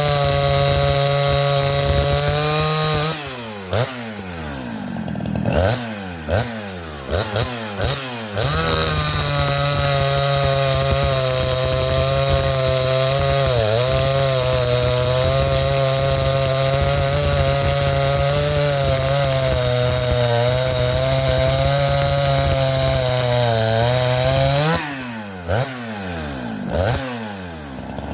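Craftsman chainsaw with a 20-inch bar and full-chisel chain running at full throttle through fresh-cut white oak, its note wavering under load. About three seconds in it drops off throttle with a few quick revs, then goes back to full speed; near the end it drops off and revs again.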